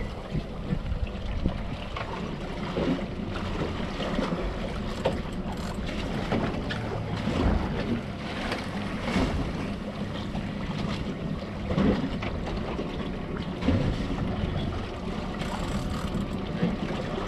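Boat drifting at sea: a steady rush of wind on the microphone and water slapping against the hull, over a low, steady hum from the idling Yamaha outboard, with scattered irregular knocks.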